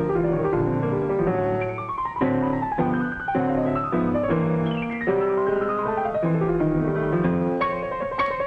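Piano music played fast, full of quick descending runs of notes, with a held high note entering near the end.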